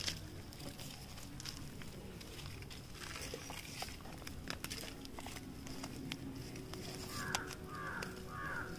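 Faint rustling and light scattered clicks of a plastic-and-coir air-layer bundle and a knife being handled. Near the end come three short faint chirps.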